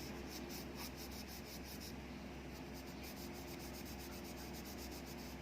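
Cloth rubbing quickly back and forth on a small metal shutter part, scrubbing off old graphite grease, with several faint strokes a second over a low electrical hum.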